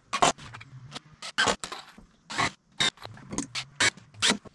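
Irregular sharp wooden knocks and clatter from work on a pine timber frame, about a dozen in all, over a faint steady low hum.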